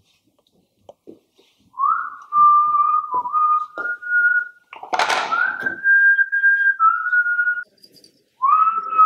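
Someone whistling a slow tune of long held notes with small steps in pitch, pausing briefly about a second before the end. A few soft knocks come in the first few seconds, and a short loud rush of noise about five seconds in.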